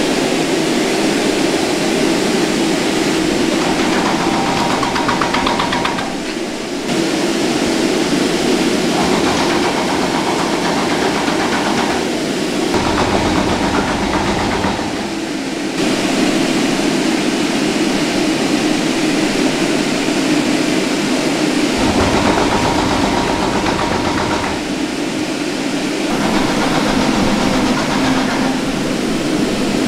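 Steady drone of food-processing machinery running, its tone changing abruptly several times.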